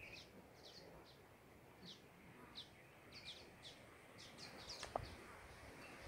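Small birds chirping faintly: many short, high chirps that drop in pitch, a few each second. A single sharp click sounds about five seconds in.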